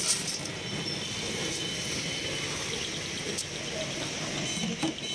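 Roasted in-shell peanuts dropped by hand into a stainless steel bowl, a brief dry clatter at the start followed by a few light clicks, over steady street traffic noise.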